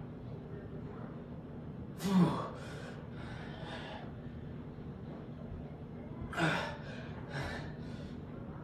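Heavy, gasping breaths from a man straining through barbell back squats: a loud breath about two seconds in and another about six and a half seconds in, each followed by a couple of shorter, softer breaths.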